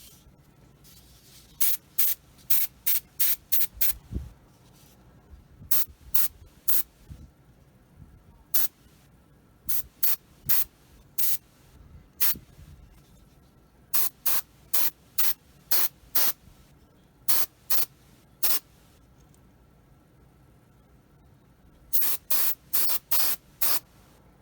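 Airbrush spraying primer in short, trigger-pulled bursts of hiss, several in quick succession, then a pause before the next run.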